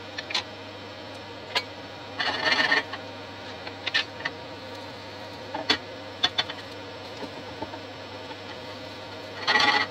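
Pancake frying in a non-stick pan on a gas hob, over a steady low buzz. A few light clicks and knocks, a short scrape a couple of seconds in, and a louder scrape near the end as a plastic slotted spatula is worked under the pancake to loosen it.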